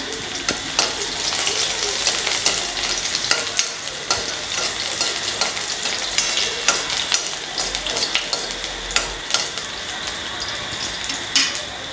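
Chopped onions sizzling in very hot oil in a steel kadhai, with frequent sharp clicks and scrapes from a steel ladle stirring them against the pan. The oil is hot enough that the onions start to scorch as soon as they go in.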